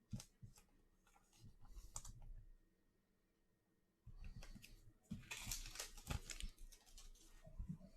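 Faint handling of trading cards: soft clicks and rustling as cards are slid and flipped one behind another, busiest about five to six and a half seconds in.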